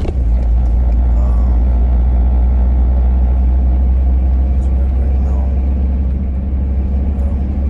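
Minibus going over a rough patch, heard from inside the cabin: a loud, steady low rumble that starts suddenly. The noise comes from the rear of the bus whenever it hits something; the owner does not know its cause but takes it for a bad sign.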